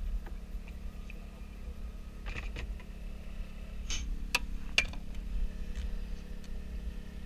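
Steady low engine hum aboard a bowfishing boat. A few sharp clicks and knocks of gear being handled come around the middle.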